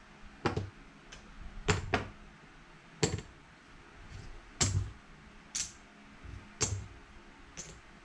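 Casino chips clicking together as they are picked up, stacked and set down on a felt craps layout: a string of sharp, irregular clacks, roughly one every second.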